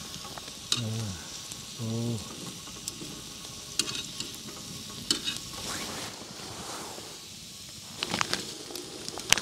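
Meat frying: a steady sizzle with scattered pops, and a quicker run of crackles near the end.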